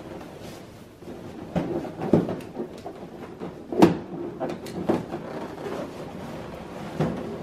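Inflated latex balloons rubbing, squeaking and bumping together as they are handled, pressed and tied by hand. Several uneven knocks, the sharpest about four seconds in.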